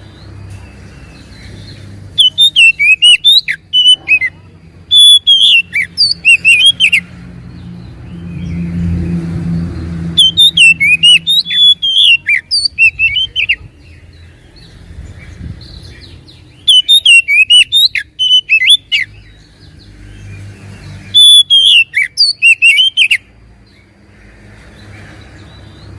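Oriental magpie-robin (kacer) singing loud, rich phrases of quick whistled notes. There are five separate bursts of about two seconds each, with pauses between them, repeated as a lure song to provoke a quiet bird into singing.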